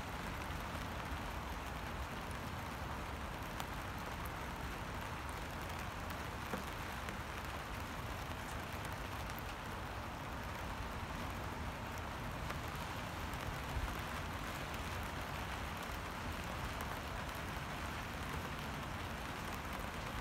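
Steady rain falling on a puddle: an even hiss with a few faint single drop ticks.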